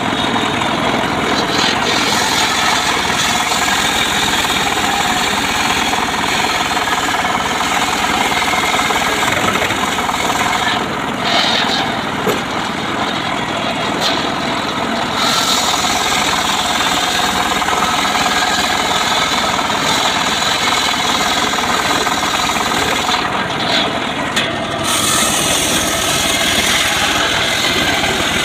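Homemade engine-driven portable sawmill (gergaji srekel) running steadily while its saw cuts through a log. The highest hiss of the cut thins out twice, for a few seconds each.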